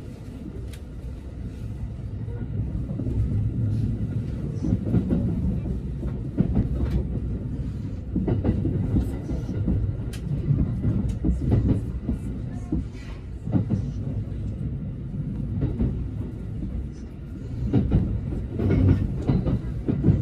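Train running on rails: a low rumble with wheels clicking over rail joints, growing louder over the first few seconds.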